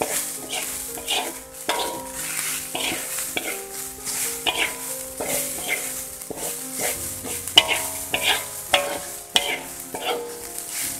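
Spatula scraping and tossing fried rice around a hot wok about twice a second, over a steady sizzle.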